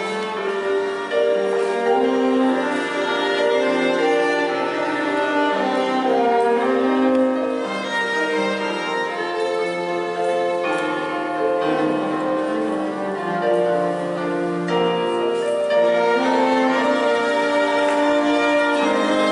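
Live chamber ensemble of two violins, French horn and cello playing, mostly held notes that change every second or two.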